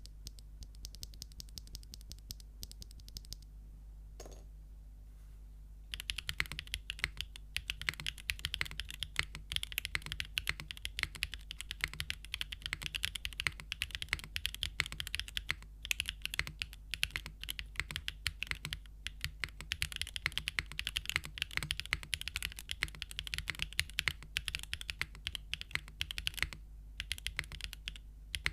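Typing on a Geonworks F2-60 custom mechanical keyboard with Gateron Smoothie linear switches, an aluminium plate, o-ring mount and no foam: lighter, scattered keystrokes at first, then after a short pause, fast continuous typing from about six seconds in, with a brief pause near the end. A faint steady low hum sits underneath.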